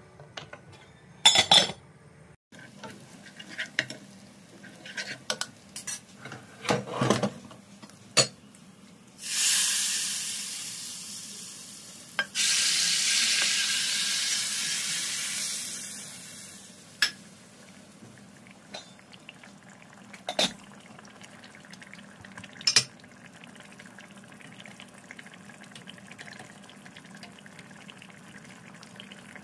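A silicone spatula stirring and knocking against metal cooking pots, then loud sizzling for several seconds as a hot fried tomato-and-spice mixture is poured from a frying pan into a pot of tomato stew; the sizzle comes in two goes, the second longer and fading away.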